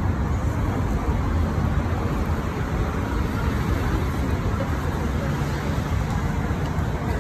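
Busy city avenue ambience: a steady wash of road traffic noise, with passers-by talking.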